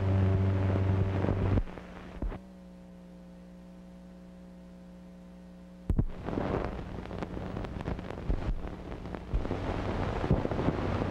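Soundtrack of an old film transfer between two films: a held music chord dies away in the first second or two, leaving a steady electrical hum. About six seconds in a sharp click starts crackly, hissy film-soundtrack noise.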